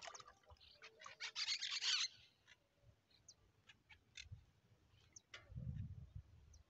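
Close hand-handling noises from baiting a fishing hook: a burst of crinkling about a second in, scattered light clicks, and a soft low rumble near the end.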